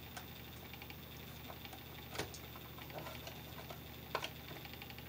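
Small clicks and ticks of a screwdriver pushed into the release slot of a light switch's push-in terminal while the wire is worked loose, with a sharper click about two seconds in and another near four seconds. A low steady hum underneath.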